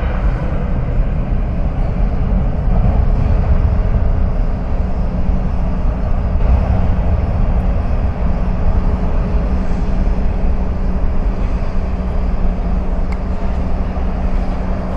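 Boeing 787-9 Dreamliner's jet engines running at takeoff power during the takeoff roll: a loud, steady, deep roar. A steady low hum joins about six seconds in.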